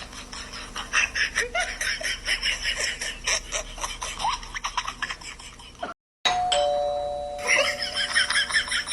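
Electronic doorbell chime sounding its two notes, a higher tone then a lower one (ding-dong). It sounds at the start and again just after a brief dropout about six seconds in, over a busy patter of sharp clicks.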